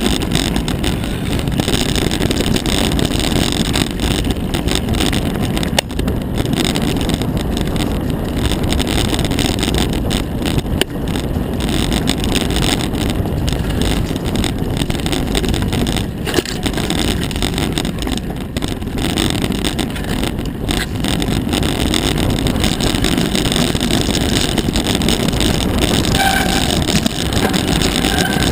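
Mountain bike riding fast down a rough dirt singletrack, picked up by an on-board camera: a steady rumble of tyres and rattling of the bike over the trail, mixed with wind buffeting the microphone. Short high tones come in near the end.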